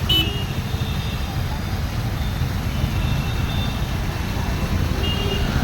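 A waterfall: falling water makes a steady rushing noise, heaviest in the low rumble. A few faint high whistles sound near the start and again near the end.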